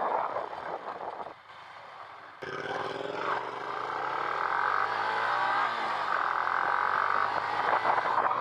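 Motorcycle engine with revs falling steadily for a few seconds and then levelling off, heard from the rider's helmet camera along with wind rush. The sound changes abruptly about two seconds in.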